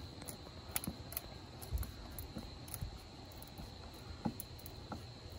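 Faint, irregular small clicks and scrapes of a screwdriver turning a worm-gear hose clamp on the rubber intake air duct as it is tightened, over a steady high-pitched background tone.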